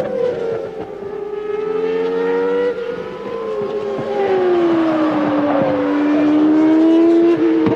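1995 Formula One race car engines running at high revs. Their note sinks over a few seconds and then climbs again, with a second, higher engine note heard alongside.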